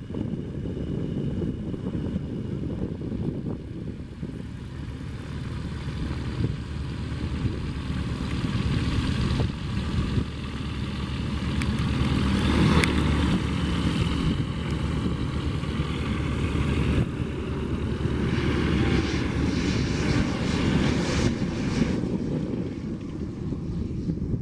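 Embraer A-29 Super Tucano's single turboprop engine and propeller as the aircraft comes in to land, growing louder to a peak about halfway through and staying loud after.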